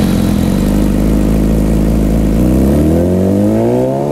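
A motorcycle engine running loudly at a steady speed, then revving up smoothly through the last second and a half.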